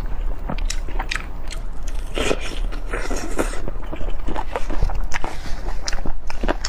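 Close-miked eating: a person biting and chewing food, with many irregular sharp clicks and a denser, louder stretch of chewing a couple of seconds in.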